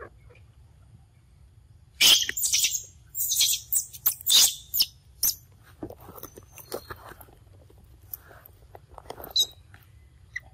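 A run of loud, high-pitched squeaky chirps from an animal about two seconds in, lasting some three seconds, followed by fainter scattered chirps and squeaks.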